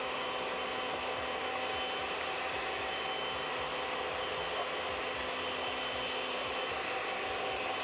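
Countertop blender running steadily, blending a liquid marinade: an even whir at a constant pitch.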